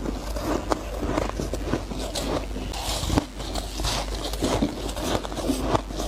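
Close-miked crunching as soft ice and freezer frost are bitten and chewed, with rapid irregular crunches and crackles.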